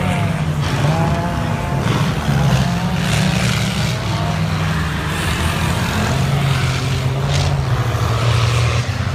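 Off-road rally 4x4s' engines running hard at high revs as they race past on a dirt track. The engine pitch rises and falls in the first couple of seconds, then holds at a steady loud drone.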